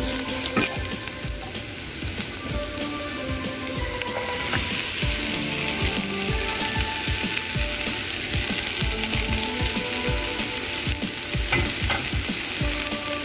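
Shallots, dried red chillies and curry leaves sizzling in hot coconut oil in a nonstick pan, stirred with a wooden spatula with small knocks against the pan. About four seconds in the sizzle grows louder as a heap of finely chopped taro stems is tipped into the oil.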